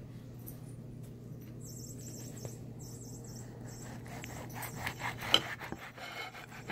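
Knife sawing through a rolled spinach-wrap burrito, rubbing and scraping, then a few knocks against the plate with a sharp one about five seconds in. A low steady hum underneath.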